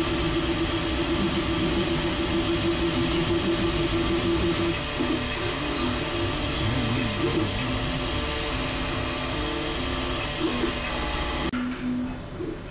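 FDM 3D printer mid-print: its stepper motors whine in held tones that jump to new pitches with each move of the print head and bed. About eleven and a half seconds in, this drops away to quieter room sound.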